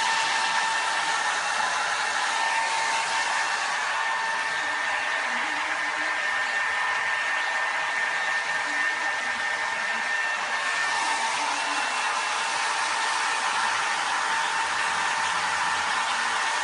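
Hair dryer on its low setting blowing steadily, a constant rushing hiss with a steady motor whine, drying a grey parrot's feathers after a bath. The upper hiss turns softer for a few seconds midway, then comes back.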